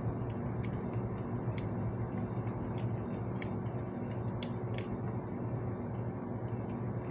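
Scattered light clicks of a screwdriver tightening the small screws on a motorcycle's rear brake fluid reservoir cap, over a steady low hum.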